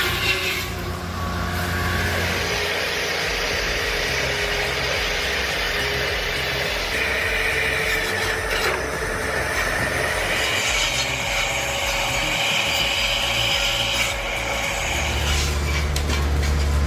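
The engine of a heavy forestry machine running steadily, with a higher whine that swells and fades a few times over it.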